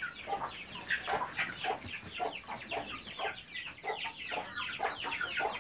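A flock of chickens clucking, many short falling calls overlapping.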